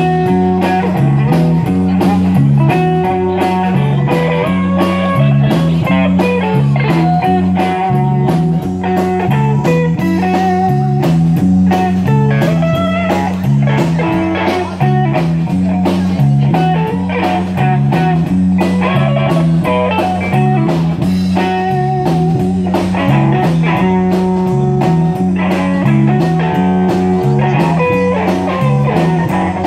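A live band playing an instrumental passage: guitar lines over a repeating bass figure and drums, with a blues feel.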